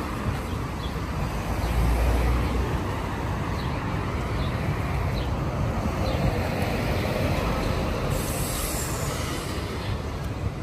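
Street traffic noise, with a louder low rumble about two seconds in and a high hiss near the end.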